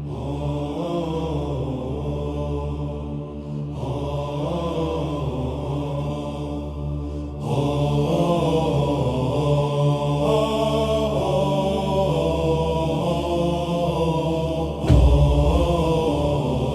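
Dark Nordic war music: low wordless chanting voices held over a steady deep drone. Near the end a deep boom comes in and the music gets louder.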